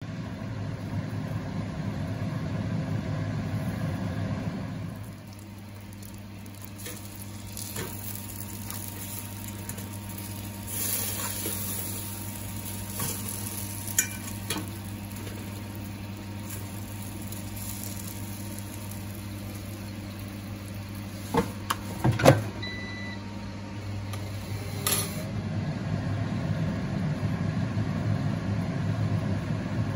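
Air fryer running with a steady fan hum, which stops about five seconds in when the basket is opened and starts again about 25 s in. In between, burger patties sizzle faintly in the open basket, a fork clinks on the pan, and there are a few loud metal clatters a little after 20 s.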